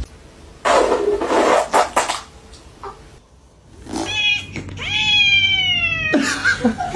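A cat meowing: a short call, then one long drawn-out meow that falls slightly in pitch, with more short calls near the end. It is preceded by about a second and a half of loud hissing noise.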